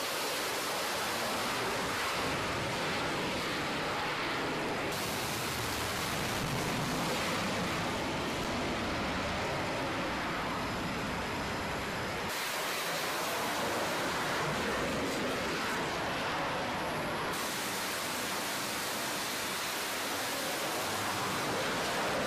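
Steady, even roar of jet engine noise on an aircraft carrier's flight deck as F/A-18 Super Hornets run up and launch by catapult, with no distinct tones. Its treble changes abruptly three times where the footage is cut.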